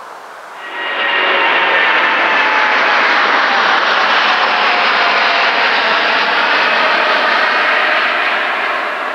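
Boeing 777's twin turbofan engines running as the jet taxis: a loud rush of jet noise with a high whine of several tones, which comes in suddenly about a second in, drifts slowly lower and eases off near the end.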